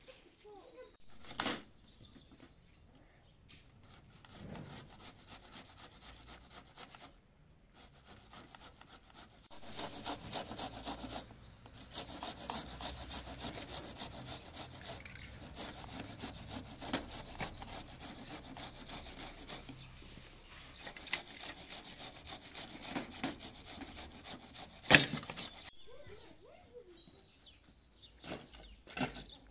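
Rapid, even scraping strokes keep up for about fifteen seconds in the middle. There is a sharp knock about a second and a half in, and a louder knock near the end.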